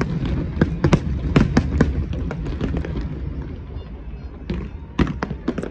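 Aerial fireworks display: a rapid run of sharp bangs and crackles from bursting shells over a low rumble. The bangs thin out about halfway through, then a fresh cluster comes near the end.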